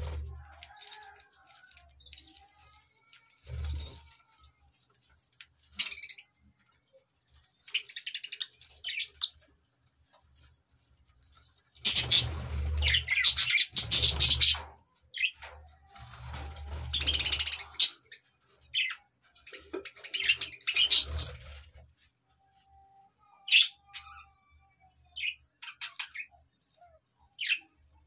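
Budgerigars chirping and chattering in short, irregular bursts. A busy stretch of loud flock chatter comes through the middle, then a few single sharp chirps near the end.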